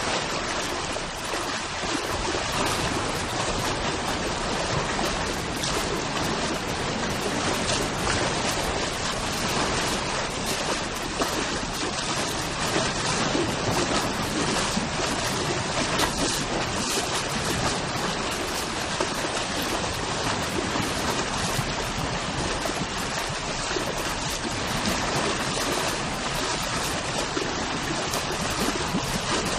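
Ocean waves breaking rapidly on a coast, a continuous churning wash of surf with no distinct pauses between waves.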